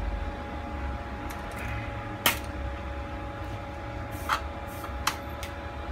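A few short, sharp clicks and taps of tools being handled on an electronics workbench, the loudest about two seconds in. Under them runs a steady low machine hum with a faint steady whine.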